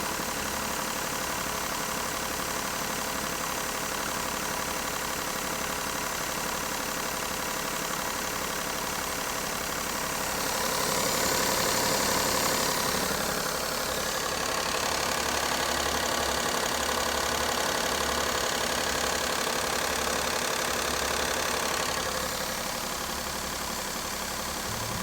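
Daihatsu Tanto L350S's 660 cc three-cylinder engine running at idle, growing briefly louder and brighter about ten seconds in.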